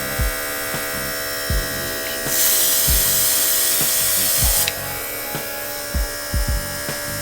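Cordless mini air compressor's motor running with a steady hum while the airbrush gun sprays with a hiss for about two seconds in the middle. A few soft low knocks come through now and then.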